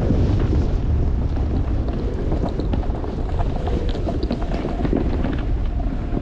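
Wind buffeting the microphone in a steady, loud rumble while descending the slope in a snowstorm, with short ticks and scrapes scattered through it.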